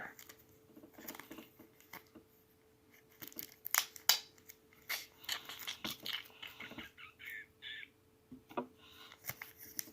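Small plastic and card packaging being handled and picked at: scattered quiet clicks, taps and crinkles, with a couple of brief squeaks near the end, over a faint steady hum.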